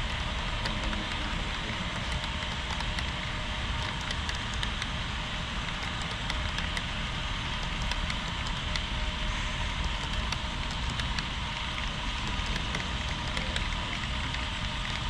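HO scale model train rolling along the track: a steady running noise with many small rapid clicks of metal wheels on rail.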